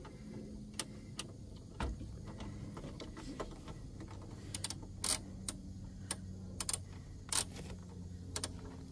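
Ratchet wrench with a Torx T40 bit loosening the screws that hold the seat rails to the platform: irregular metallic clicks, sparse at first and more frequent in the second half, over a low steady hum.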